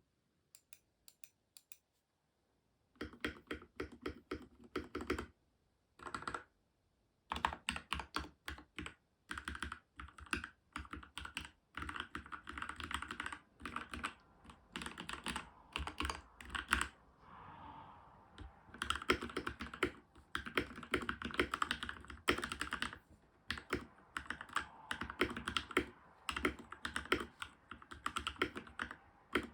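Typing on a Keychron K4 mechanical keyboard with factory-lubed Gateron Red linear switches. A few faint taps come first, then rapid keystrokes start about three seconds in and run in bursts with short pauses.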